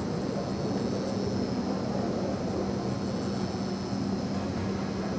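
Pen-style rotary tattoo machine running with a steady, even hum as the needle stipples dots and small figure-eight strokes into practice skin.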